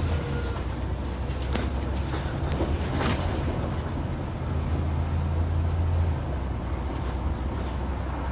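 Scania N94UD double-decker bus on the move, heard from inside: a low steady engine drone that grows stronger a few seconds in and drops back just after the middle, with a couple of brief knocks or rattles.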